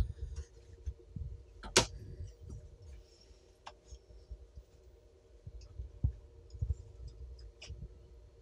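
Quiet room tone with a faint steady hum and a few scattered light clicks and knocks, the sharpest about two seconds in.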